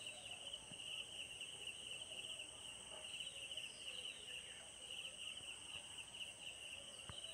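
Faint, steady high-pitched trilling of insects, with a single click near the end.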